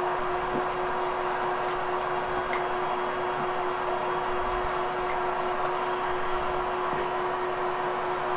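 Vacuum cleaner running steadily over a freshly cleaned carpet, grooming and setting the lifted pile, with a constant motor whine.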